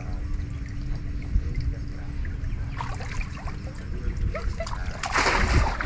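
Water trickling and splashing, with a louder splash of under a second near the end.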